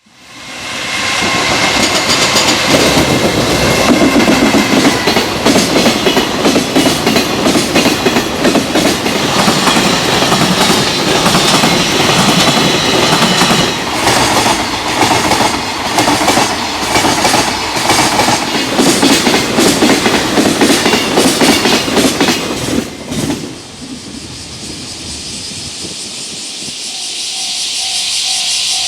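Freight train passing at speed, its wheels clattering rhythmically over rail joints for about twenty seconds. The train noise then drops away abruptly, leaving a steady high hiss that grows a little near the end.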